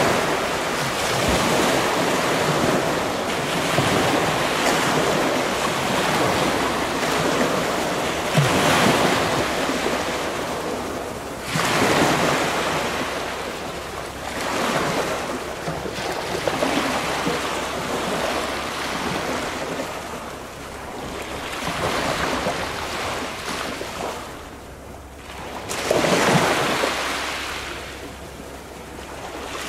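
Sea waves washing onto the shore, surging and fading every few seconds, with wind on the microphone.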